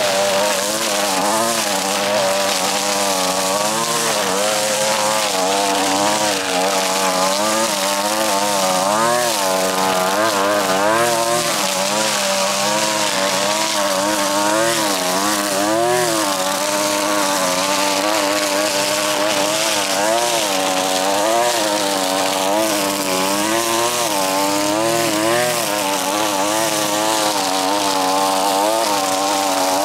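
Gas string trimmer running hard while cutting tall grass, its engine pitch repeatedly rising and dipping every second or two as the line bogs in the thick growth and recovers.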